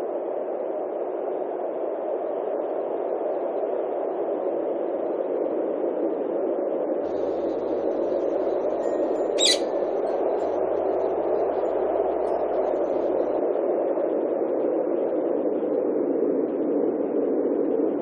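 A parrot gives one short, shrill screech about halfway through, with a few faint high chirps around it, over a steady dull background noise.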